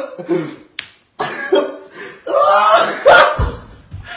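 Short bursts of men's voices with a sharp smack about three seconds in.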